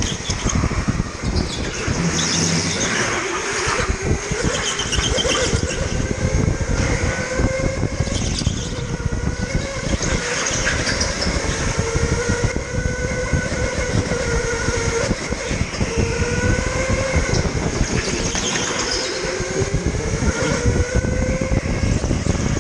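Electric go-kart's motor whining, its pitch rising and falling again and again as the kart speeds up and slows down, over a constant rattling rumble of the kart and its tyres on the track.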